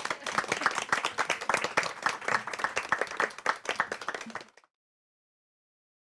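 A small audience applauding, many overlapping hand claps, cut off suddenly about four and a half seconds in.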